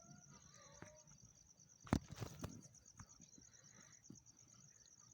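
Faint nature ambience: crickets trilling steadily in a high, evenly pulsing chirr, with a few short bird chirps in the first second. A brief cluster of soft clicks comes about two seconds in.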